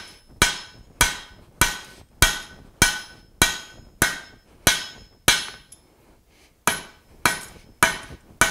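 Hand hammer striking red-hot steel bar on an anvil to draw it out, one blow about every 0.6 s, each with a short metallic ring. The blows stop for about a second and a half midway, then resume at the same pace.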